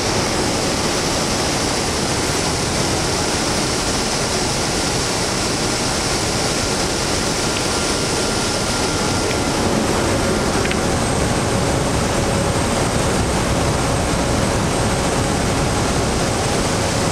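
Steady engine and airflow noise inside the cabin of a small high-wing propeller plane flying a low descent toward landing, with a faint steady whine over it. The noise gets slightly louder about ten seconds in.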